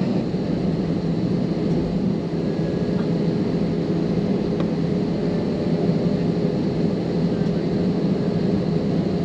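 Airbus A320's jet engines running steadily, heard from inside the passenger cabin as the aircraft taxis: an even low drone with a faint steady tone above it.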